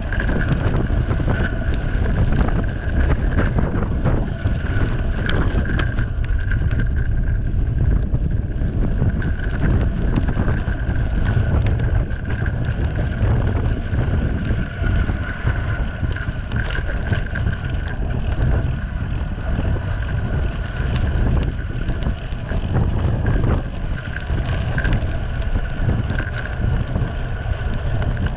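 Wind buffeting the microphone of an action camera on a bicycle coasting fast down a gravel road, with the tyres crunching and frequent small knocks and rattles from the bumps. A steady high whine runs underneath.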